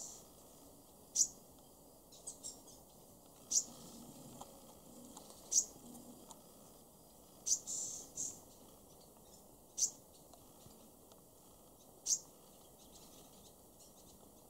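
A bird's short, high chirps repeating about every two seconds, with two or three quicker notes bunched together partway through.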